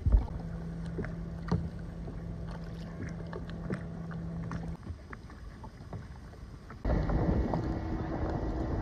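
Kayak being paddled through water: paddle splashes with scattered light clicks and knocks over a low rumble. The sound suddenly gets louder about seven seconds in.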